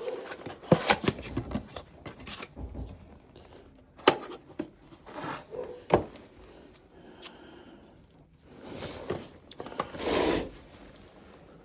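Clicks, knocks and scraping from hands handling tools and metal furnace parts, with a sharp click about 4 s in and another about 6 s in, and a short rushing noise near the end.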